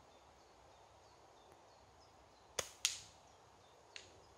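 A catapult (slingshot) shot: two sharp cracks a quarter second apart as the band snaps forward and the steel ball bearing strikes a tree, then a fainter knock just over a second later as the ball bounces off into another tree.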